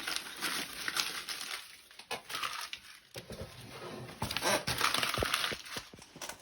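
Paper being crumpled and torn, probably pages from an old exercise book being balled up as kindling for a fireplace: irregular crackling, rustling bursts with brief pauses between them.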